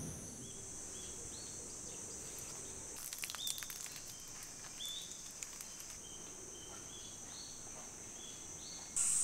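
Faint rainy-morning woodland ambience: a steady high insect drone, with a bird calling in short, even-pitched notes again and again. A few sharp taps about three seconds in, like drips falling on the tarp.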